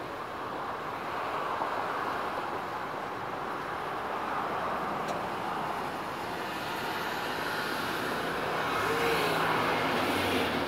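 Steady outdoor city background noise, a continuous hum of distant traffic, growing a little louder near the end.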